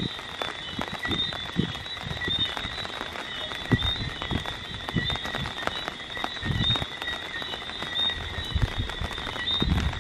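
A night chorus of frogs calling in steady, overlapping high chirps, over rain patter and irregular low gusts of wind on the microphone.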